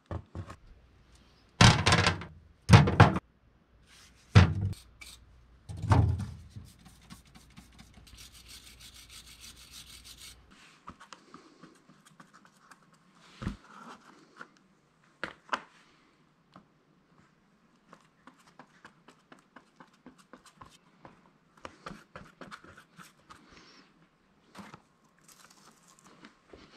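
Four heavy thunks in the first six seconds, and a brief hiss about eight seconds in. After that, light scraping and scattered clicks as a transmission top-cover gasket is handled on cardboard.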